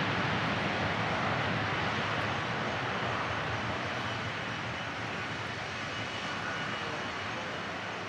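Boeing 727's three Pratt & Whitney JT8D low-bypass turbofans at takeoff thrust during the takeoff roll: a continuous jet noise that fades steadily as the jet moves away down the runway.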